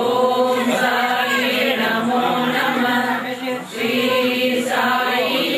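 Voices chanting together in unison, a devotional chant sung in long held phrases, with a short break for breath about two-thirds of the way through.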